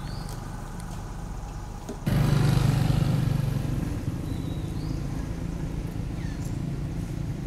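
An engine running steadily in the background, jumping louder about two seconds in and easing back down. A few short bird chirps over it.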